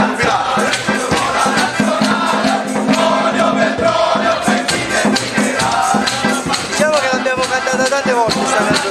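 A group of men singing a traditional Molise Christmas song in chorus, accompanied by a bufù friction drum's steady low drone and dense rattling percussion.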